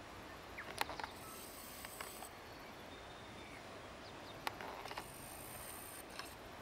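Western weka foraging in dry grass: a few soft clicks and rustles in two small clusters, about a second in and again about four and a half seconds in, over a faint steady outdoor background. A faint high hiss comes and goes twice.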